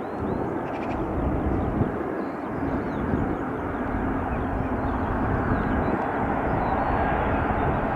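Jet airliner engines, a steady rushing noise that grows slightly louder toward the end.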